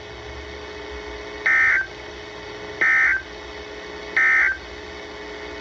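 Emergency Alert System end-of-message signal: three short bursts of buzzy two-tone SAME data, about 1.4 seconds apart, marking the end of the warning broadcast, over a faint steady hum.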